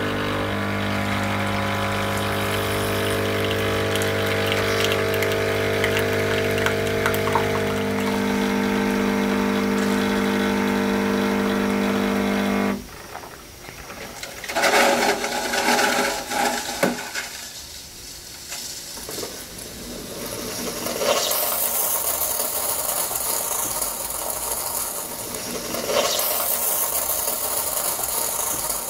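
Bosch Tassimo capsule coffee machine brewing. Its pump hums steadily for about thirteen seconds and then stops abruptly. Irregular spluttering follows, then hissing with a few sharp spits as the last coffee and steam are pushed out through the spout.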